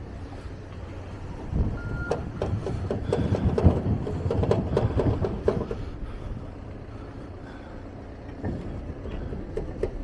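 Backhoe loader working on snow clearing: its engine runs steadily, with a run of irregular clanks and knocks from about one and a half to six seconds in, and one short high beep about two seconds in.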